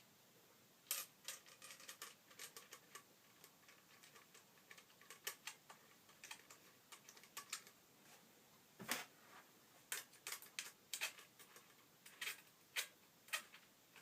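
Faint, irregular clicks and taps of small metal bicycle parts being handled and slid together, as headset spacers and the stem go onto the fork steerer.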